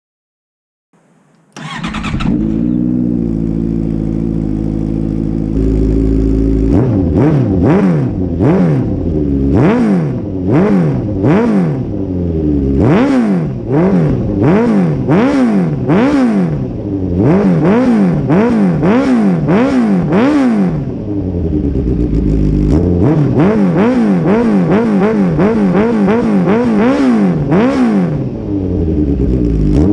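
Honda CB650F inline-four engine breathing through a straight-through Mivv MK3 full exhaust with no catalytic converter: it starts up about two seconds in and idles. It is then blipped over and over in quick rev-ups that fall back each time, with a brief return to idle about two-thirds of the way through before more blips.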